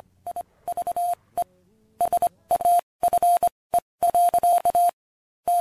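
Glitchy electronic intro sting: a single beep-like tone chopped into rapid stuttering bursts with clicks, starting and stopping irregularly, with a brief low gliding tone about a second and a half in.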